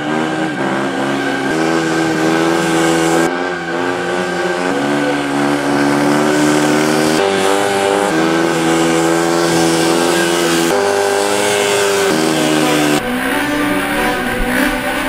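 Yamaha dirt bike engine held at high revs through a long wheelie, its pitch stepping up and down with the throttle. Near the end the engine is heard from on the bike, with wind noise.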